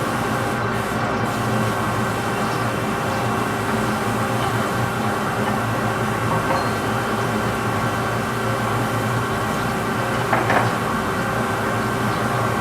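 Metal lathe running steadily while turning a large part, a constant mechanical hum with several fixed tones. A brief clatter about ten seconds in.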